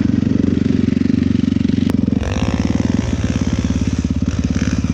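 Dirt bike engine running with a fast, even exhaust pulse; about two seconds in, the beat drops to a slower pulse, as when the throttle is eased or the bike shifts.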